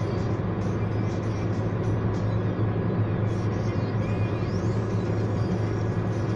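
Steady low drone of a car travelling at motorway speed, heard from inside the cabin: engine hum under constant tyre and road noise.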